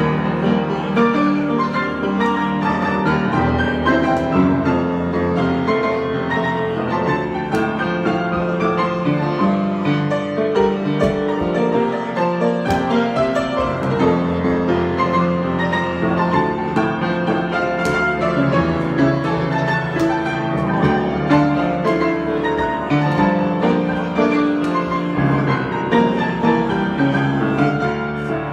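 Improvised piano music: a continuous stream of notes and chords.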